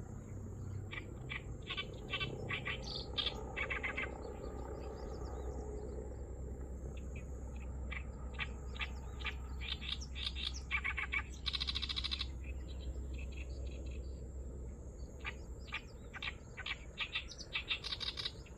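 Oriental reed warbler giving an unusual call: bursts of quick, repeated notes, with a longer buzzy phrase about twelve seconds in.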